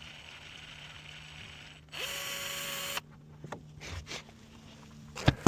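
A small electric motor whirs for about a second: it spins up quickly, holds a steady pitch and cuts off abruptly. Then come a few light knocks and two sharp clacks near the end, against a faint steady hum.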